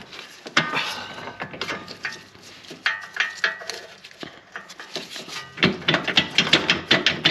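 Metal parts clinking, knocking and scraping as a bolt is worked into line through the lower control arm mount. There are irregular sharp knocks with brief ringing, and they come thicker and faster over the last couple of seconds.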